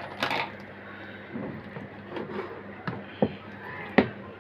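Handling noise from an inverter circuit board and its wiring being picked up and turned over on a table: a few short clicks and knocks, the sharpest about four seconds in, over a faint steady low hum.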